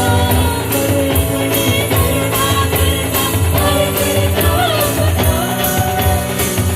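Live worship music: an instrumental passage with a steady beat and tambourine-like percussion under a melody line, with some singing.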